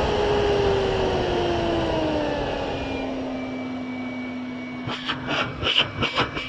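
Miele Complete S8 Cat & Dog 2200 W vacuum cleaner motor dropping in pitch as its suction is turned down, then running steadily at low power. A run of short knocks near the end.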